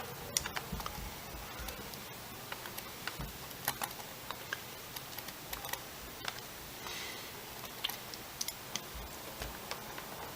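Small screwdriver working motor screws into a quadcopter frame: scattered light clicks and ticks of the driver tip and the screws turning.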